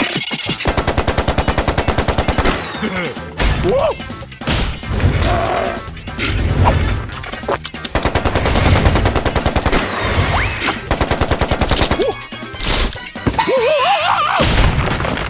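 Cartoon sound effects: a fast, machine-gun-like rattle in two long runs, with short squeaky cries in between.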